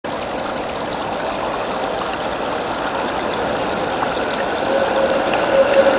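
Water running steadily over the low stone edges of a shallow street water basin. Near the end a tram's steady whine comes in and grows louder as the tram approaches.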